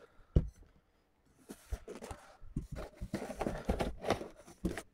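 A glass beer bottle set down on a table with a sharp knock, then rummaging in a cardboard delivery box: packaging rustling, with scattered knocks as bottles are handled, the last knock near the end.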